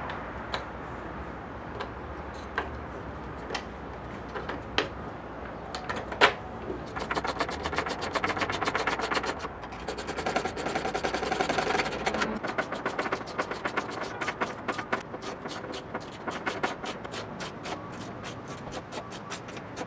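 Hand screwdriver driving screws into plywood brackets, a few separate clicks and knocks at first, then from about seven seconds in a long run of quick, even clicks as the screwdriver is turned.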